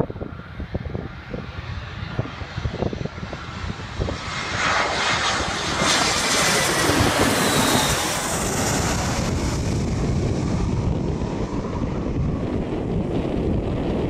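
Airbus A320-232 with IAE V2500 turbofans passing low overhead on final approach. The jet noise builds from about four seconds in and peaks with a falling whine around seven seconds, then eases into a low rumble. Wind gusts buffet the microphone in the first few seconds.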